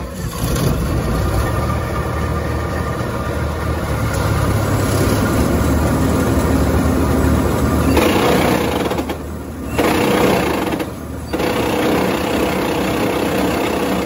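Gleaner combine switched on and running: a loud, steady mechanical drone with a rattling clatter over it, which dips briefly twice near the end. It is being run to clear soybean-field mud that had clogged it.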